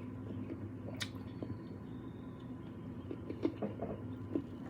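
Quiet close-up eating sounds of a person chewing jerk pork rib meat and gristle: soft wet mouth sounds with one sharp click about a second in and a few small ticks near the end.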